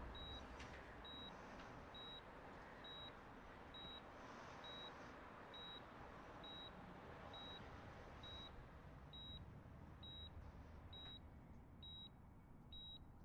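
Faint, short, high-pitched beeps from a medical monitor, repeating evenly a little more than once a second, over quiet room hiss.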